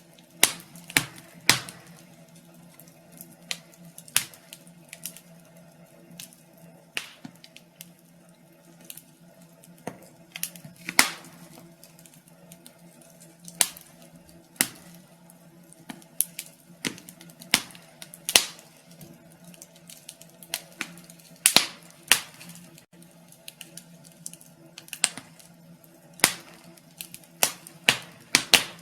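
Wood fire crackling in a fireplace: irregular sharp pops and snaps, roughly one every second or so, a few much louder than the rest, over a faint steady low hum.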